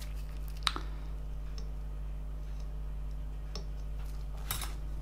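Sparse small clicks and taps of fly-tying tools being handled at the vise: one sharp click under a second in, fainter ticks about once a second, and a louder pair of clicks near the end, over a steady low hum.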